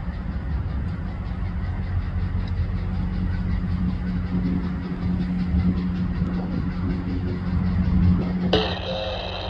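Union Pacific diesel-electric locomotives running as they pull a freight train slowly past, a steady low engine drone. About a second before the end a different, higher-pitched sound comes in.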